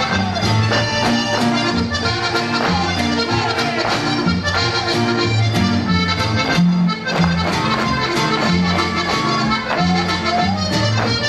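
Norteño dance music led by accordion, playing a lively tune over a bass line with a steady beat.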